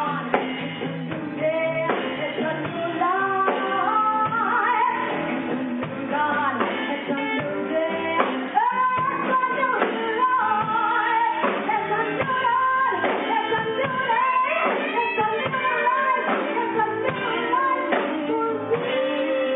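A woman singing into a microphone, backed by a live band of electric keyboard, drum kit and electric guitar.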